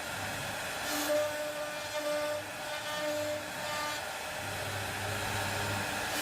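Background music without singing: held synth notes over a pulsing bass, with a brief crash about a second in and another at the end.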